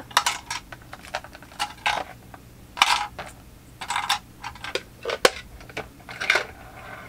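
Small hard plastic clicks and clatter at irregular intervals as sewing-machine accessories are handled in and around a white plastic accessory compartment, with a few sharper snaps.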